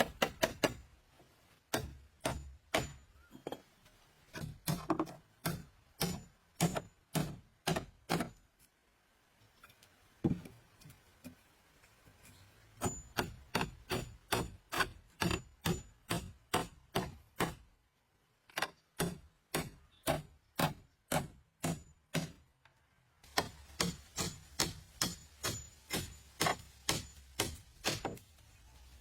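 Repeated sharp blows of a hand tool, about two a second, in runs broken by a few short pauses, as in chopping or hammering.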